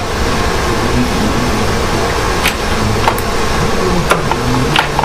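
Steady background hiss and hum with a handful of light, sharp clicks and taps from parts being handled at the engine's fuel rail and injectors.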